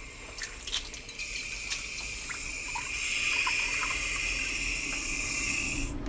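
Tap water running through a hose into a small stainless steel jug, filling it. A few light knocks as it starts, then a steady stream that grows louder around the middle and stops near the end.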